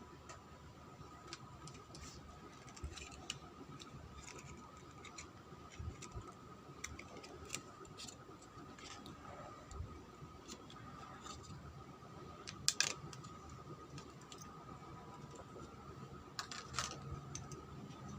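Small clicks, taps and scrapes from handling a laptop's plastic case and internal parts, with two louder bursts of clicks past the middle and near the end. A faint steady high tone runs underneath.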